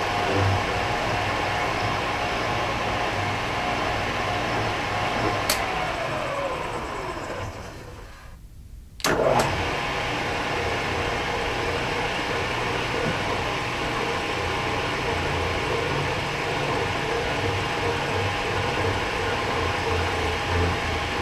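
Machine spindle motor power tapping a hole: it runs steadily, then is switched off with a click about five seconds in. It winds down with a falling whine and goes almost quiet for a second. It restarts with a click about nine seconds in and runs steadily again, as when the spindle is reversed to back the tap out.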